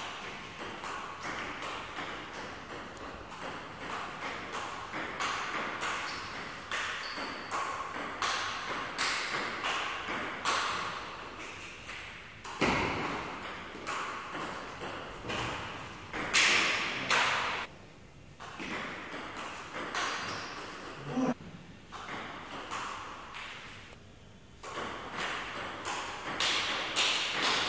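Table tennis rally: the ball clicking off the paddles and bouncing on the table in quick succession, several hits a second, with two short pauses between points in the second half.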